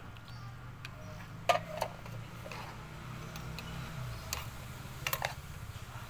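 Metal spoon clinking against a metal cooking pot, a few light scattered clinks with the loudest about a second and a half in and a quick pair near the end, over a steady low hum.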